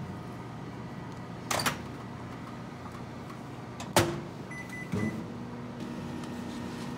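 Convenience-store microwave oven door latch clicking open with a loud clack about four seconds in, followed by a short electronic beep and a thump. A brief clatter comes earlier, all over a steady hum of store appliances.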